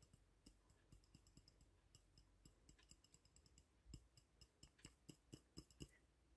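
Near silence with faint, scattered light clicks and taps as dried gold powder is shaken out of a porcelain dish into a small crucible; the clicks come more often in the second half.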